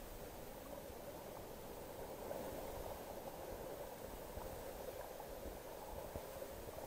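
Faint, steady, muffled water noise with a fine crackle of tiny bubbles, as picked up by an action camera held under the water.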